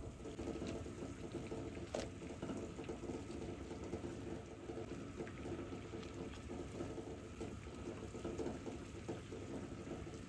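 Water bubbling steadily at a boil, with many small pops and ticks.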